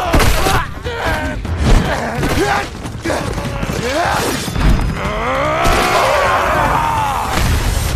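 Fight sound effects: heavy blows and thuds with short grunting cries, then a long shout about six seconds in that rises and then falls in pitch.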